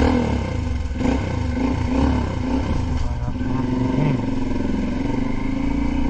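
Motorcycle engine catching just at the start, then running steadily at low revs with slight rises and falls in pitch as the bike moves off.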